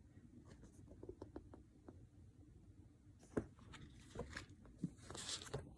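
Quiet room with faint taps and paper rustling from a picture book being handled, and one sharper click about three and a half seconds in.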